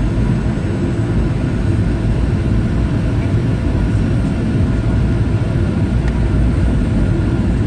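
Steady low rumble of a Boeing 737 airliner's cabin in flight: engine and airflow noise heard from inside the passenger cabin.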